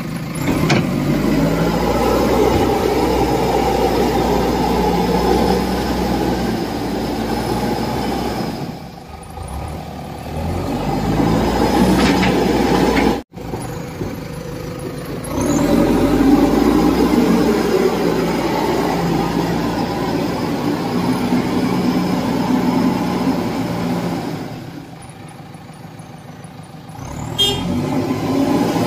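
JCB 3DX backhoe loader's diesel engine running under load while the front bucket pushes soil; the engine note rises and falls. It eases off twice, about ten seconds in and near the end, then picks up again.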